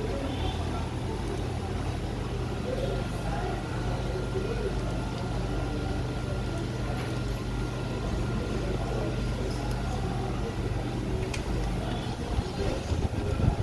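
A steady low mechanical hum with a thin steady whine above it, and indistinct voices in the background; a few sharper knocks come near the end.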